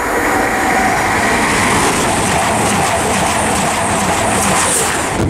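East Midlands Trains Class 222 Meridian diesel multiple unit passing through the station at speed. A loud, steady rush of wheel, air and engine noise that drops away near the end as the train clears.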